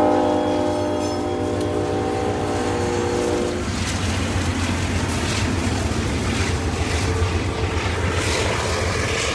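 Diesel passenger train passing close by: the F40FH locomotive's air horn sounds a long chord that cuts off about three and a half seconds in, then the steady rumble of the coaches rolling past with their wheels clacking over the rail joints.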